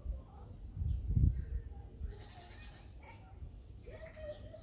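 African penguins braying, their donkey-like calls heard over a low rumble that is loudest about a second in.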